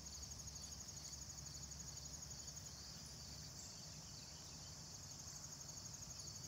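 Faint, steady high-pitched trilling of insects in a summer garden, over a low rumble.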